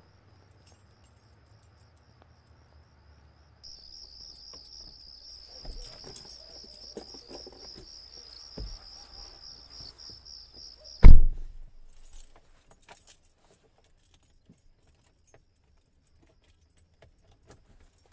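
Crickets chirping in a steady pulsing trill, with rustling and small clicks of someone settling into a car; about eleven seconds in a car door shuts with a heavy thump, the cricket sound cuts off, and only faint clicks are left inside the closed car.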